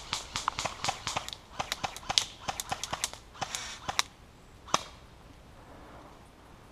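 Airsoft guns firing a rapid, uneven string of sharp cracking shots, about four or five a second, that stops abruptly with one last louder shot a little under five seconds in.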